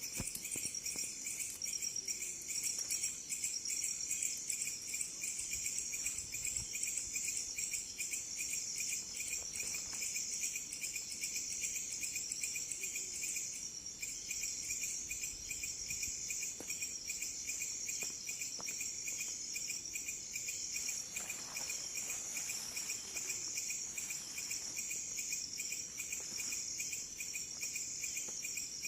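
Night chorus of crickets: a steady, fast-pulsing high trill at two pitches.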